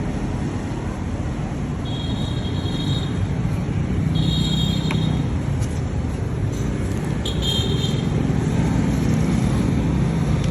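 Steady road-traffic rumble, with three short high-pitched beeps spaced a couple of seconds apart.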